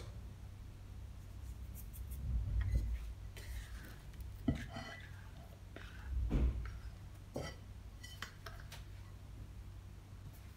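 Quiet handling sounds as risen bread dough is turned out of a ceramic mixing bowl onto a wooden board. The bowl is tipped and knocks against the board, giving a few light clicks and two dull thumps, about two and a half and six seconds in.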